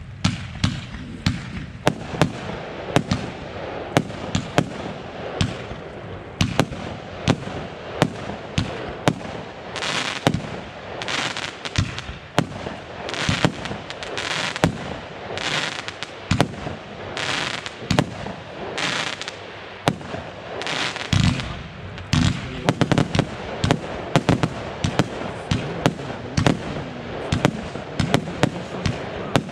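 A consumer fireworks battery firing shot after shot: a steady string of sharp bangs, about two a second. In the middle stretch, bursts of crackling come between the bangs, and near the end the bangs come faster.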